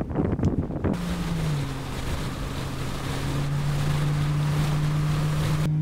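Wind buffeting the microphone in gusts for about a second, then, after an abrupt change, a steady low hum that dips slightly in pitch, under an even hiss that stops just before the end.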